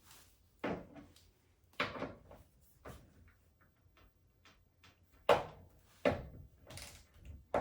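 A wrench knocking and clicking against a stiff transit bolt on the back of a washing machine: six short sharp knocks about a second apart, with quiet between.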